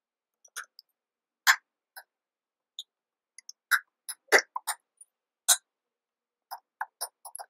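Computer keyboard typing: irregular key clicks, single strokes and quick runs of keys, with short pauses between them.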